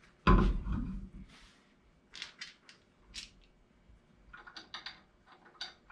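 A heavy thump as a steel wheel is set onto a VW Beetle's front hub, then scattered small metallic clicks and scrapes as its lug bolts are handled and started by hand.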